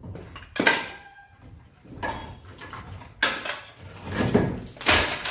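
Irregular knocks and clattering bangs, about five in all, each sudden and dying away quickly.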